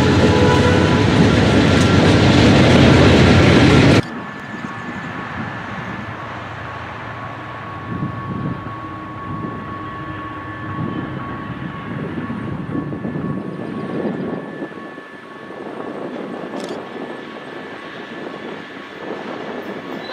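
GE B40-8 diesel locomotive: the tail of its air horn in the first second or two, then the loud roar of the train passing close. An abrupt cut about four seconds in drops to a much quieter stretch of steady low rumble with a faint steady whine.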